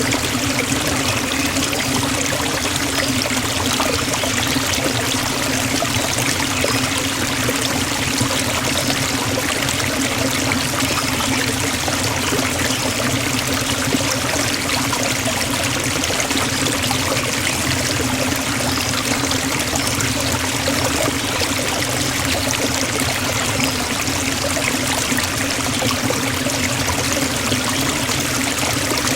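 Forest waterfall: a steady, unbroken rush of falling water.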